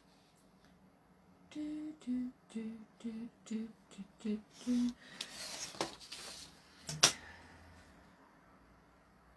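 A woman humming a short tune of about eight quick notes while she works, followed by the scratch of a craft knife cutting paper along a metal ruler. A single sharp click about seven seconds in is the loudest sound.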